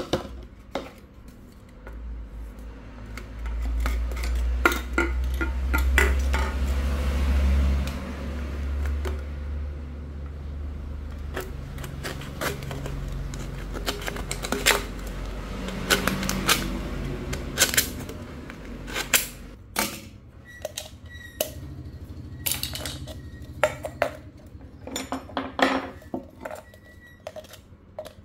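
Aluminium drink can being cut with a utility knife and handled on a stone slab: sharp clicks, scrapes and tinny metal knocks, with a low rumble underneath for several seconds near the start.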